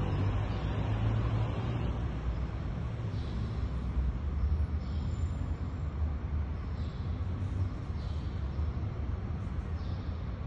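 Steady low rumble of background noise, like distant traffic, with faint soft scuffs every second or two.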